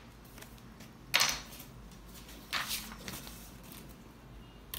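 Handling noise of a handheld inkjet printer being brought down onto a sheet of paper and swept across it to print: two short rustling swishes, about a second in and about two and a half seconds in, and a small click near the end.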